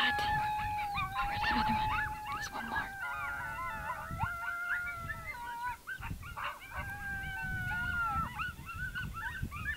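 A group of coyotes howling and yipping: several voices overlap in long wavering howls broken by short rising yips.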